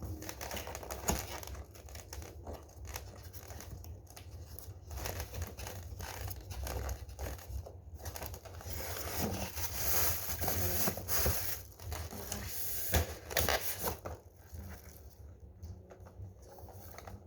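Packaging being handled during an unboxing: irregular crinkling, rustling and tearing with scattered clicks, busiest about halfway through and tailing off near the end.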